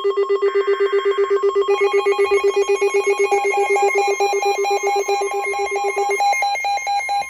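Electronic emergency alert tones ahead of a severe thunderstorm warning: a low tone pulsing rapidly, with a steady higher tone underneath. About three seconds in a second, higher pulsing tone joins, and the low pulsing stops near the end.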